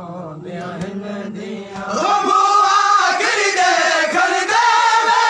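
Men's voices chanting a noha, a Shia lament, in unison. The singing is quieter at first, then the group comes in much louder about two seconds in.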